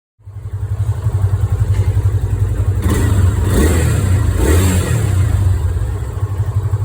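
Yamaha Fazer 250's single-cylinder four-stroke engine running, with two short swells in revs about three and four and a half seconds in. The owner presents this as an unwanted engine noise on a new bike.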